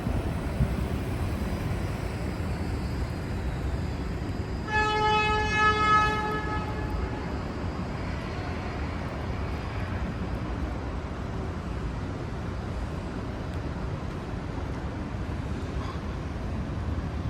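Steady low rumble of city street traffic. About five seconds in, a vehicle horn sounds once, a single held tone lasting about a second and a half.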